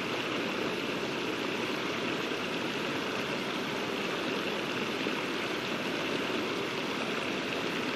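Muddy, storm-swollen river water pouring over a low weir, a steady rush of churning white water.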